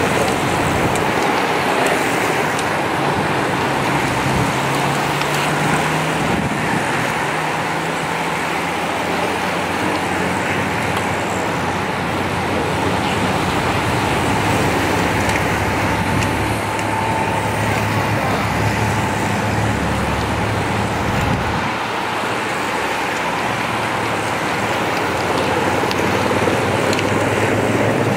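Steady rushing road noise of a large pack of racing bicycles riding past, tyres hissing on the tarmac, with a low hum underneath that rises briefly in pitch a few seconds in.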